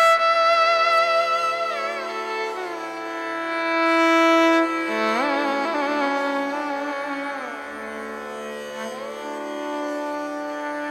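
Carnatic music accompanying a dance: a held melodic line that slides and wavers in pitch through ornamented notes, over a steady drone.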